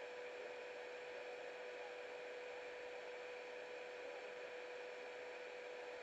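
Steady hiss with a constant mid-pitched hum and no other events: the recording noise of a small action camera standing still.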